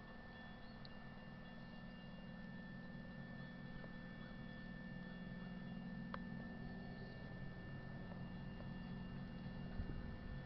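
Railroad crossing warning bell ringing steadily and faintly while the crossing gates lower, with a low hum underneath and a single sharp click about six seconds in.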